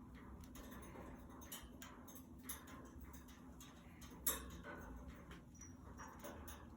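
Budgies moving about in their cage: scattered light clicks and taps of feet and beaks on perches and bars, with one sharper click about four seconds in and a faint short high peep near the end.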